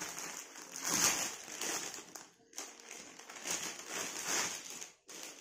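Plastic packaging crinkling and rustling in irregular swells as it is handled, with a couple of brief pauses, while a kurti is taken out of it.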